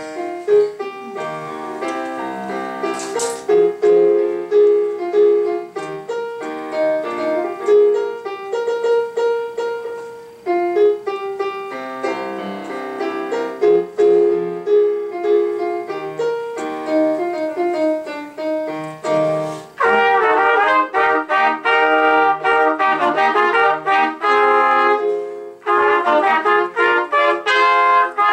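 Piano accompaniment plays an interlude under a trio of resting trumpets. About two-thirds of the way through, the music jumps louder as the three trumpets come back in together.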